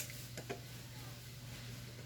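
Two light clicks, one at the start and one about half a second in, over a steady low hum.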